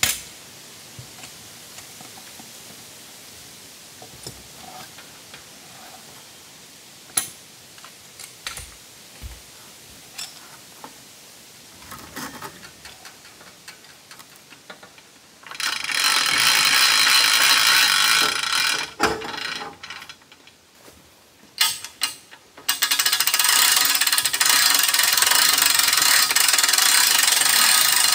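Scattered light knocks and clicks, then a hand-cranked winch on a bandsaw mill's log-loading arm ratcheting loudly in two long spells, about halfway through and again near the end, with a brief pause of clicks between them.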